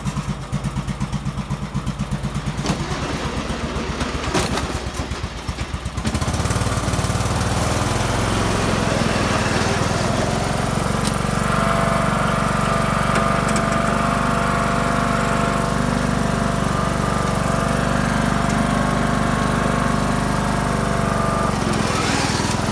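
John Deere L100 riding mower's 17 hp OHV engine, running with its governor removed: it idles with an even, rapid putter, then about six seconds in it speeds up and runs steadily faster and louder as the mower drives off.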